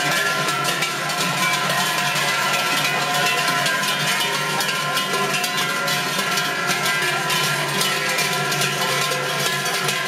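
Many large bells worn on the belts of Glöckler runners, clanging and ringing together in a dense, steady jangle as the runners pass.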